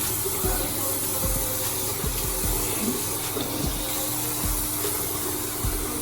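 Water running from a faucet into a newly installed sink, a steady hiss, over background music with a thumping bass beat.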